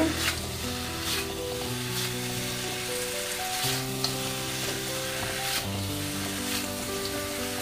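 Chicken pieces in a sauce glaze sizzling in a hot wok while a slotted spatula stirs and turns them, with short scrapes against the pan about once a second.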